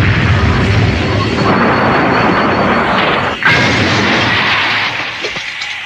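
Animated sound effects of a weapon firing and exploding: a dense, continuous blasting rumble, broken by a fresh sharp blast about three and a half seconds in, then dying away near the end.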